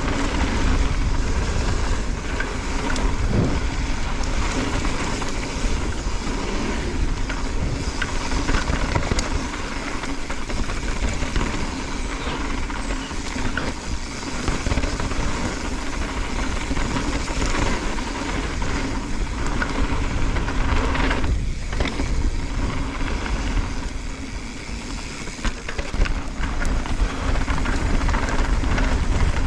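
Mountain bike riding fast down a dirt and gravel trail: tyres rolling over loose stones and the bike rattling, with a steady low rumble of wind on the microphone.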